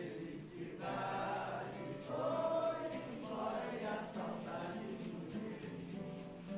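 Several voices singing together, accompanied by an acoustic guitar.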